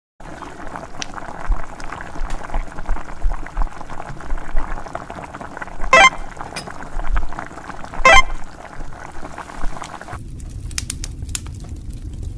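Instant noodles bubbling and crackling as they simmer in a shallow steel pan of water, with two sharp knocks about six and eight seconds in. Near the end the bubbling gives way to a lower, steadier rumble.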